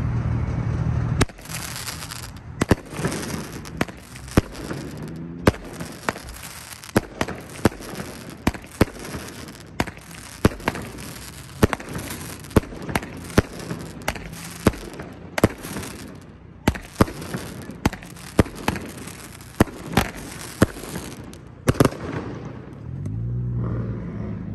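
A consumer firework going off for about twenty seconds: a steady rushing hiss of sparks, cut through by sharp cracks about two a second, then dying away.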